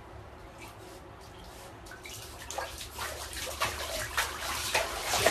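Bath water sloshing and splashing as a dog moves about in a filled bathtub: faint at first, then a run of irregular splashes from about two seconds in that grow louder.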